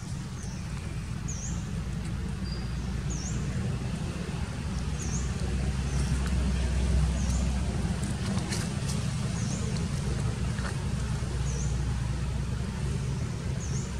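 Outdoor ambience: a low steady rumble that swells about halfway through, with a short high chirp repeated about once a second and a few faint clicks.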